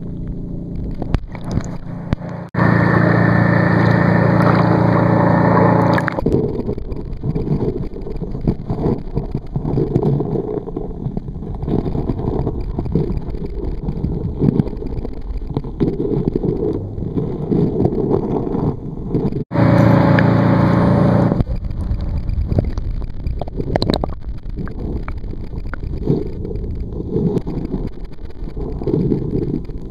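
Muffled underwater noise picked up by a waterproof camera below the surface: a steady low rumble of water moving around the camera. Twice it swells into a louder steady hum, about two and a half seconds in for about three and a half seconds, and again about twenty seconds in for about two seconds.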